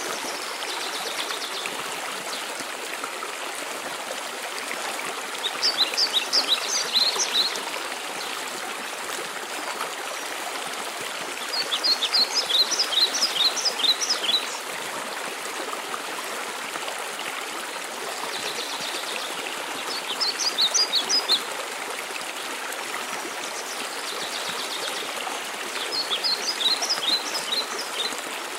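Steady rush of a waterfall, with a songbird singing four short phrases of rapid, high, repeated notes, each about two seconds long and spaced roughly six seconds apart.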